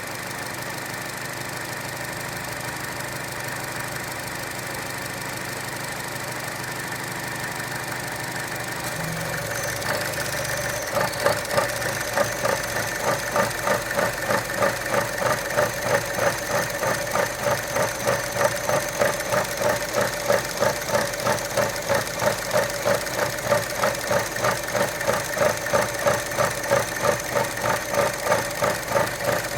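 Idle of a 2012 Chevy Cruze 1.4 turbo four-cylinder: steady at first, then about ten seconds in it turns rough, pulsing roughly twice a second, with a faint high whistle. This rough idle comes with the oil dipstick pulled out, which opens the crankcase to outside air, a problem the owner suspects is tied to a failed PCV check valve or a leaking valve cover seal.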